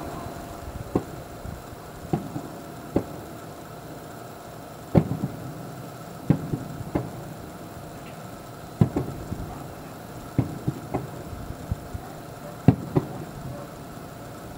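Distant aerial fireworks shells bursting: an irregular series of sharp, dull booms roughly every one to two seconds, some coming in quick pairs.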